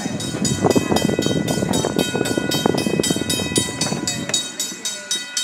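Railroad crossing bell ringing in rapid, even strikes, about four a second, over the low rumble of a small park train rolling on its rails. The rumble drops away about four seconds in.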